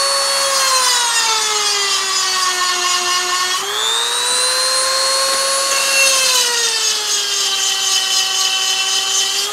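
EzzDoo rotary tool spinning a diamond grinding bit against a chainsaw chain's cutter tooth, with a steady high motor whine. The pitch drops as the bit is pressed into the tooth and the motor loads down. It picks back up about three and a half seconds in, then drops again about six seconds in.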